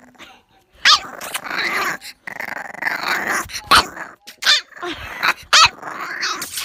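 Bulldog puppy growling in rough stretches, broken by several short, high yips.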